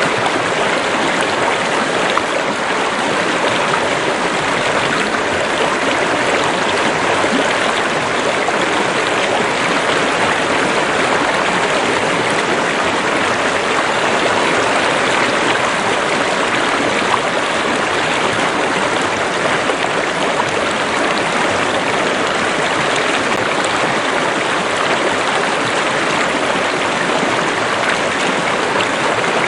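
Running water of a stream or river flowing over rocks, a steady, even rush of water.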